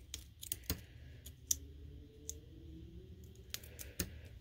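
Light, irregular clicks and taps of metal tweezers and paper as small foam adhesive dimensionals are picked off their backing sheet. There are a dozen or so sharp clicks, scattered unevenly.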